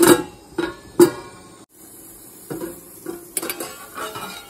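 A glass lid clanks against a steel sauté pan, two sharp ringing knocks about a second apart. Then a metal utensil clinks and scrapes in the pan with a run of small clicks.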